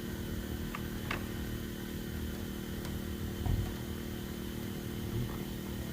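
A steady mechanical hum, with a few faint light clicks and a dull knock about three and a half seconds in.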